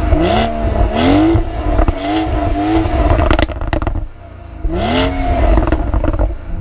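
BMW engine revved in repeated throttle blips through its exhaust at standstill, about five rising-and-falling revs with a short lull about four seconds in. The exhaust pops and crackles as the revs drop.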